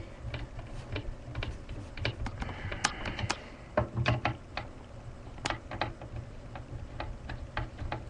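Screwdriver backing a long screw out of a computer's CPU cooler mount, giving irregular light clicks and ticks several times a second.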